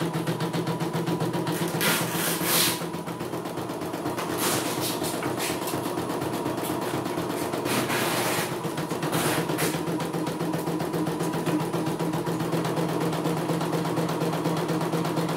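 CNY E900 computerized embroidery machine stitching, its needle working rapidly over a steady motor hum. A few short rustling noises come through about two, four and eight seconds in.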